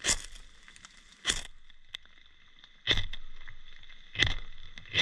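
Ferrocerium fire steel scraped hard four times, about a second and a half apart, each stroke a short rasp that throws sparks onto magnesium shavings and cotton tinder to light a fire.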